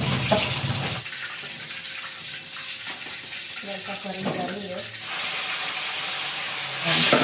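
Fish frying in hot oil in a wok: a sizzling hiss, quieter in the middle, that swells and turns loud near the end.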